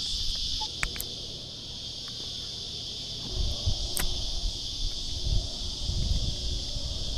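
A steady, high-pitched insect chorus drones on without a break. From about three seconds in there is a low rumbling noise, and a few sharp clicks are heard, one about a second in and another about four seconds in.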